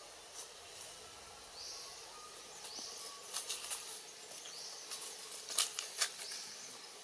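Dry leaf litter crackling in several short clusters, the loudest a little past halfway, as a baby macaque moves about on it. A faint high chirp repeats every couple of seconds behind it.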